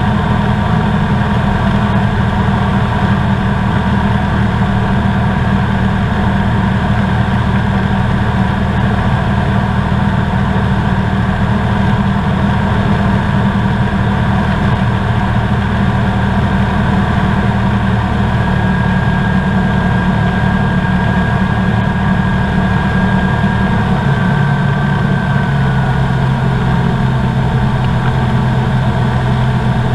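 Engine and propeller of a Comco Ikarus C42B ultralight running steadily in flight, heard inside the open-framed cabin. About three-quarters of the way through, the engine note steps down lower.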